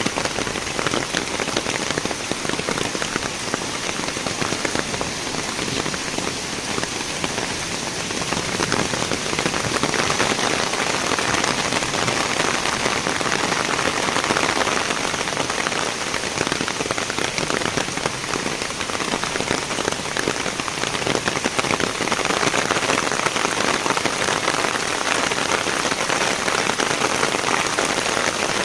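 Heavy rain pouring steadily, a dense patter of drops on surfaces that grows a little louder about ten seconds in.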